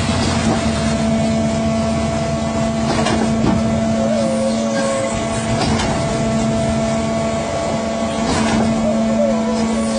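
Concrete mixer pump's engine running steadily under load, with a constant drone and a higher whine, and a few short knocks at irregular intervals.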